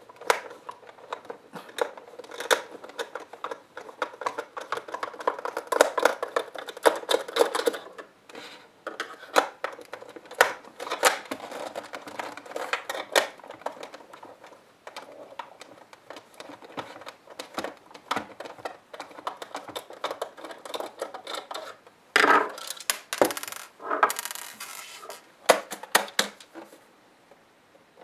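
Hands working on a small plastic dehumidifier casing: irregular clicks, taps and scrapes as screws are taken out and the plastic back cover is worked loose, with a few louder scraping bursts near the end as the cover comes off.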